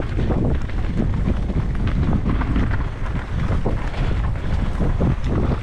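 Mountain bike being ridden down a wet, rough trail: wind buffeting the microphone over a steady low rumble, with frequent short knocks and rattles as the bike goes over bumps.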